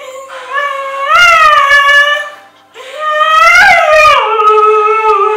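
Siberian husky howling: two long howls with a short break between, the second rising to a higher peak about a second in, then dropping to a lower held note.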